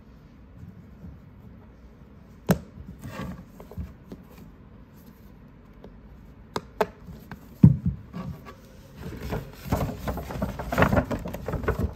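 Watch packaging handled by hand: scattered sharp clicks and one loud knock from a fabric-covered watch box, then a stiff paper shopping bag rustling and crinkling through the last few seconds.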